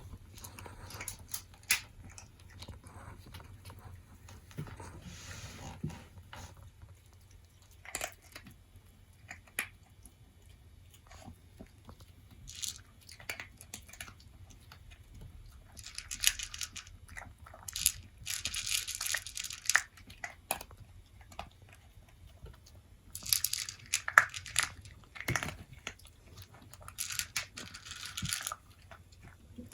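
A toy poodle eating its food from a bowl: small clicks throughout, with bouts of crunching that come louder four times in the second half.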